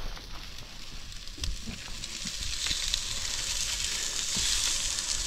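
Meat sizzling on a hot grill, the sizzle building steadily louder over the last few seconds, with a few faint clicks early on.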